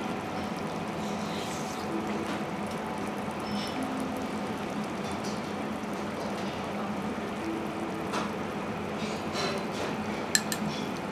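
Quiet restaurant background: an even hiss with faint distant murmurs, and a few light clicks near the end from a ceramic spoon against a small bowl.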